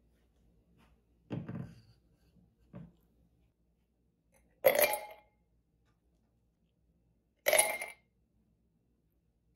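A jug set down on a wooden table with a dull knock and a smaller second knock, then ice cubes dropped into an empty stemless glass with two loud clinks about three seconds apart.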